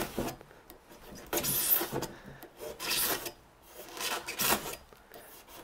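Knife blade drawn along a straight edge through 2-inch foil-faced Super Tuff-R polyiso rigid foam board, scraping in four separate strokes about a second and a half apart: the final passes of a cut made a little deeper each time.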